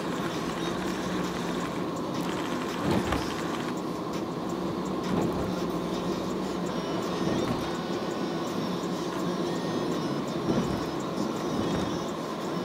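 Car driving on a wet road, heard from inside the cabin: a steady mix of engine hum and tyre hiss, with a few brief thumps.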